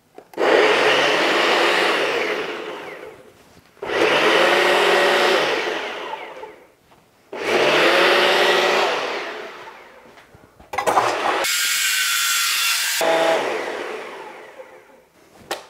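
Ninja Foodi Power Blender running its preset power smoothie program on a single-serve cup of oranges, yogurt, milk and frozen blueberries. The motor runs in four bursts of about three seconds each, winding down with a falling pitch between them, and the last one fades out near the end.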